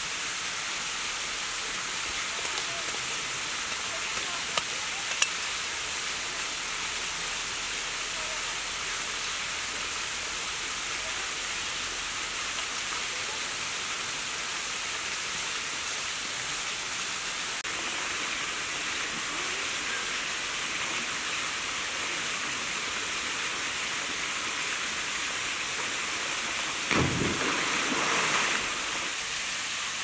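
Steady rush of a small waterfall pouring into a pool. A few sharp clicks sound about four to five seconds in, and near the end there is a brief louder rustle.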